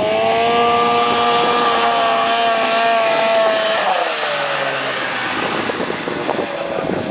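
Arctic Cat Z440 snowmobile's two-stroke engine running at high revs as it skims across open water and back onto snow, the pitch held steady and high, then dropping sharply as the sled passes close by about four seconds in, and running lower and fainter after.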